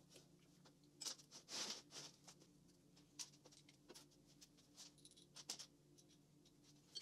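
Faint scratching and scattered light clicks of hand work on small metal engine parts, with a brief scratchy rub about a second and a half in, over a steady low room hum.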